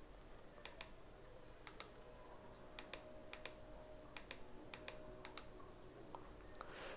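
Faint clicks of small buttons being pressed, often in quick pairs, a few each second at irregular spacing, over a low steady hum.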